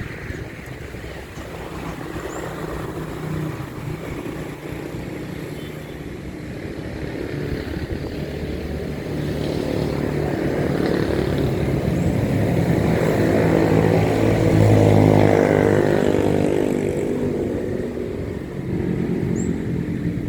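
A motor engine passing by over a steady low rumble, growing louder to its loudest about three quarters of the way through, then fading away.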